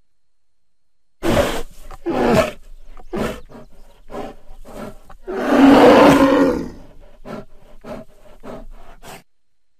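American black bear vocalizing: a series of short, rough calls starting about a second in, then one long, loudest call with a low steady tone in the middle, followed by quicker, weaker pulses that stop shortly before the end.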